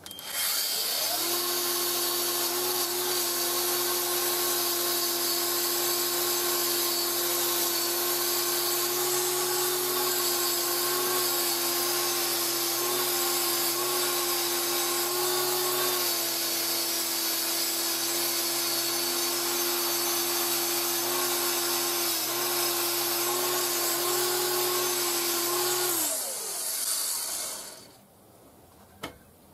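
Angle grinder with a wire wheel spinning up and then running steadily while it wire-brushes a connecting-rod bearing cap clean. It is switched off about 26 seconds in and winds down over a couple of seconds.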